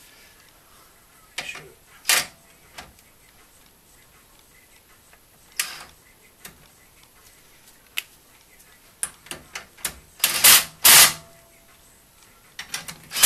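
Ryobi cordless impact driver run in short bursts to snug up a brake bolt, the loudest two bursts coming about ten seconds in and another near the end, with scattered clicks and knocks of the tool against metal parts in between.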